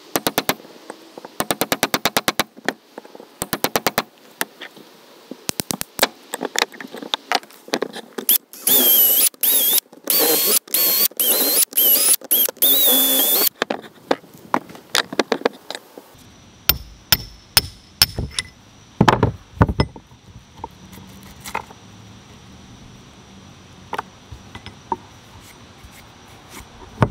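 Tools working the old wooden handle stub out of the eye of a rusty sledgehammer head. It starts with short bursts of rapid clattering. About eight seconds in, a cordless drill bores into the wood with a wavering whine for about five seconds. After that come separate hammer knocks and taps on the steel head.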